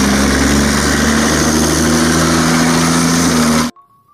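Tracked self-propelled howitzer driving, its engine running loud and steady; the sound cuts off suddenly near the end.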